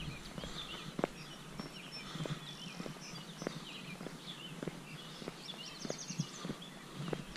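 A hiker's footsteps at a steady walking pace, about two steps a second, with songbirds chirping throughout and a quick bird trill near the end.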